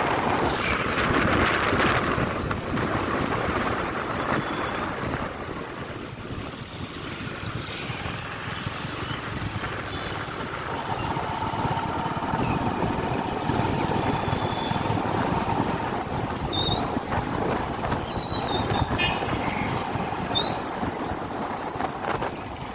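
Motorcycle riding along a road: steady engine and road noise with air rushing past. A few short high-pitched gliding tones sound near the end.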